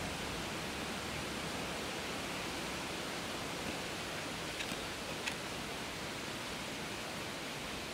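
Steady, even background hiss with no clear source, broken by two faint ticks a little over halfway through.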